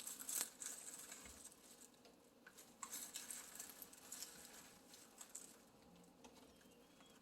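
Faint, scattered light clicks and rustling of dried homemade dishwasher tablets being handled and set into a plastic container.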